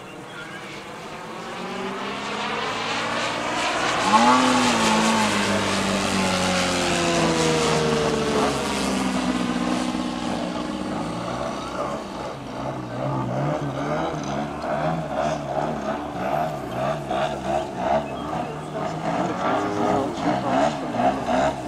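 Engines and propellers of RC aerobatic model planes, growing louder as they come in, with the pitch rising and then falling away as they pass. In the second half one plane's engine runs with a fast wavering pulse as it manoeuvres low.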